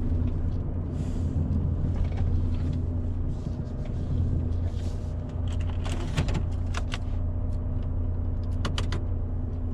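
Semi-truck's diesel engine running steadily with a low hum, with a few light clicks about six and nine seconds in.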